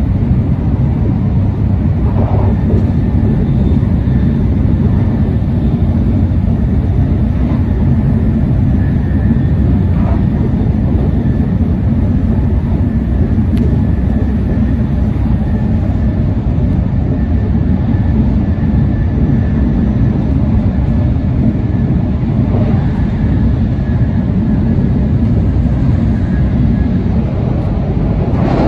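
Steady running noise inside an N700S Shinkansen car at speed, a constant low rumble, with a faint high whine through the middle.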